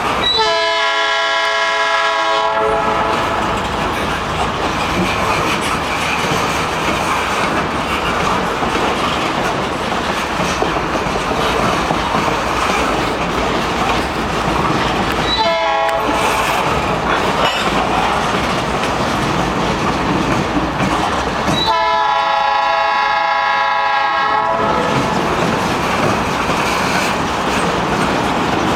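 Freight train of covered gondola cars rolling past steadily with a clickety-clack of wheels on rail joints, while a locomotive horn sounds three times: a long blast just after the start, a short blast about halfway through, and another long blast a few seconds later.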